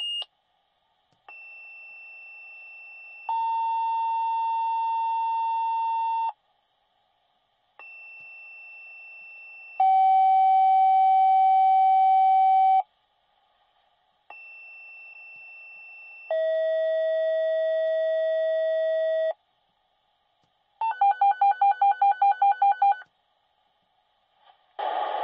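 Fire department dispatch two-tone paging over radio: three sequences, each a fainter higher tone for about two seconds followed by a louder, lower steady tone for about three seconds, each sequence's lower tone pitched lower than the last. Near the end comes a fast run of alert beeps, about six a second for two seconds, as the pagers are set off.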